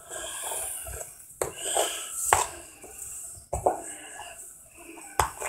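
An old camera case being handled and worked open: four sharp knocks and clacks, with rubbing and rustling in between.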